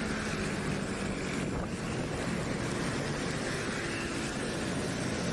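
Motor scooter riding at speed on a wet road: a steady engine hum under a constant rush of wind on the microphone and road noise.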